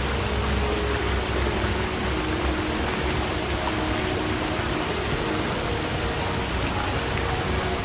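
Forest stream running: a steady rush of water with faint low gurgles.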